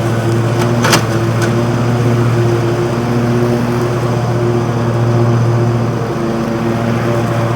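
Lawn mower engine running at a steady speed while mowing grass, with a sharp click about a second in.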